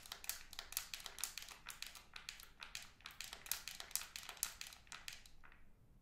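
Wrappers of two Magnum Double Chocolate bars crinkled between the fingers, one bar in each hand, in a dense run of rapid crackles that stops about half a second before the end.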